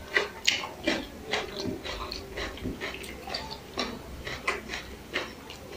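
Close-miked chewing and lip smacking while eating biryani by hand: a quick run of short wet smacks and clicks, about three a second.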